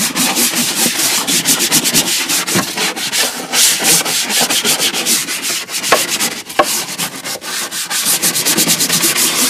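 Quick repeated scrubbing strokes on the soapy plastic lid of a Macintosh LC case, several strokes a second, with a couple of sharp knocks about six seconds in.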